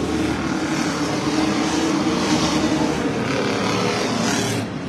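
A pack of short-track stock cars running at speed as they pass close by, their engines making a dense, steady drone. The noise grows louder through the middle and drops off suddenly near the end.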